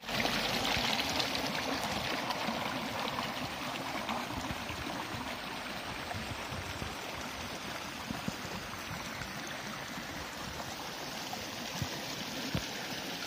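Shallow stream of water running and trickling over rocks, a steady rushing that is loudest in the first couple of seconds, with a couple of soft thumps near the end.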